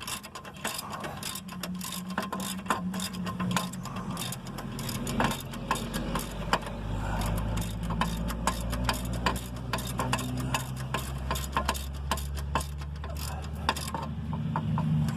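Socket ratchet wrench clicking in quick strokes as brake caliper mount bracket bolts are run in and snugged up, over a steady low hum that grows stronger about halfway through.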